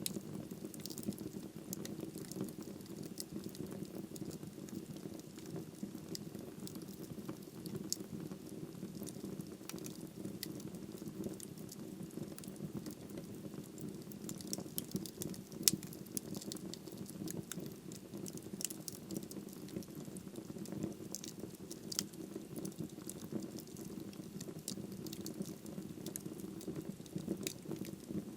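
Wood fire burning in a fireplace: a steady low rush of flames with frequent small crackles and pops, one sharper pop about halfway through.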